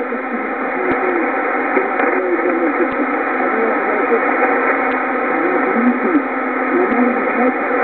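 Shortwave broadcast of Radio Huanta 2000 on 4747.10 kHz heard through a communications receiver in lower-sideband mode: a weak voice comes through steady hiss and static, with a few static clicks. The sound is thin and narrow, cut off above and below by the receiver's filter.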